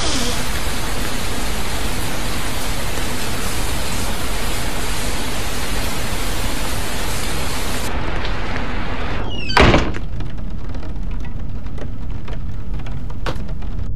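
Heavy rain pouring steadily through an open front door. About eight seconds in the hiss turns duller, and near ten seconds the door shuts with one loud thud, after which the rain goes on muffled.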